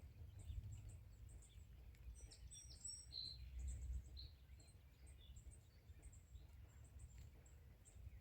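Faint scattered bird chirps over a low rumble of wind or handling noise, close to silence.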